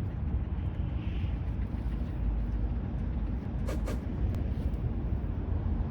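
Steady low rumble, with a few short clicks about two-thirds of the way through.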